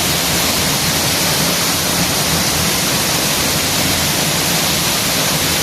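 Waterfall running high after a day of rain, its heavy flow making a loud, steady rush of water.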